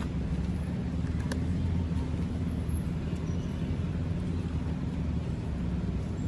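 A low, steady engine rumble from a motor vehicle, a little louder over the first few seconds, with a couple of faint clicks about a second in.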